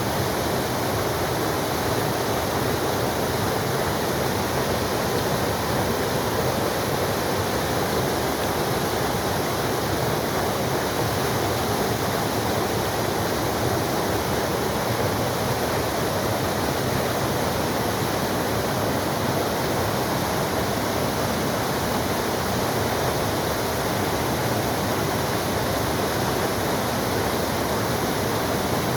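Waterfall pouring steadily: a dense, even rush of falling water with no breaks or changes.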